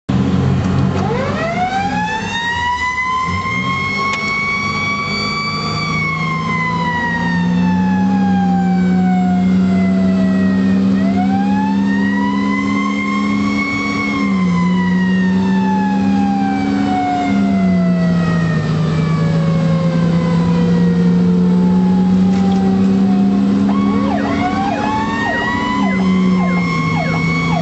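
Fire engine siren wailing, heard from the cab: it rises in pitch three times, each rise followed by a long, slow fall. A loud low drone runs beneath it and steps up and down in pitch a few times.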